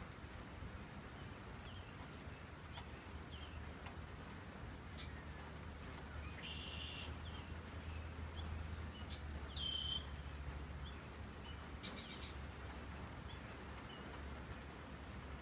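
Songbirds calling, with scattered chirps and short whistled calls every few seconds, over a faint low rumble that swells in the middle.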